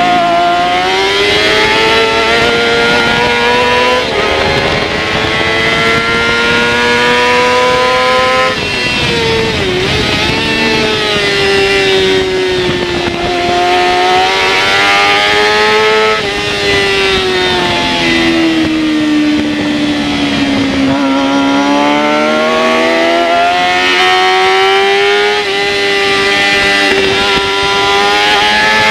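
Yamaha R6's 600 cc inline-four engine at racing revs, heard from a camera mounted on the bike. The pitch climbs under throttle, drops sharply with a brief dip about nine to ten seconds in, sags slowly through the middle, then climbs again near the end.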